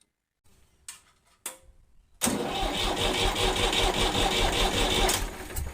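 Ford 3000 tractor's three-cylinder diesel engine being cranked over on the starter motor for about three seconds, with a regular pulsing as the pistons come up on compression. It is being turned over to bleed fuel through to the injectors. Two short clicks come just before the cranking.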